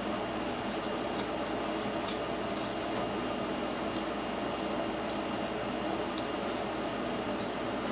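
Close-miked eating of steamed crabs: wet smacking and slurping with scattered short, sharp clicks at irregular moments, over the steady hum of a room air conditioner.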